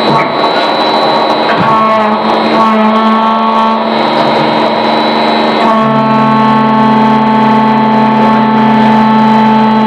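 Hydraulic pump and motor of a plastic injection moulding machine running with a steady whine. Its note shifts about six seconds in, where a lower hum comes in.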